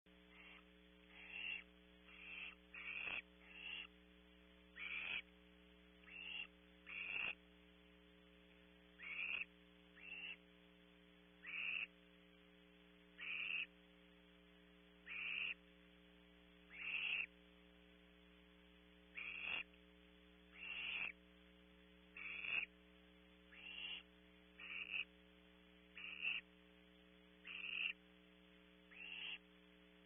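Barn owl owlet giving repeated raspy hissing calls, the begging "snore" of a nestling. The hisses come one every second or two, each swelling in loudness and then cutting off, over a steady electrical hum.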